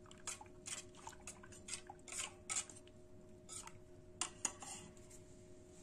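Wire whisk clicking and scraping against the sides of a stainless steel bowl as thin spiced buttermilk is whisked, in a run of irregular metallic clicks, several a second.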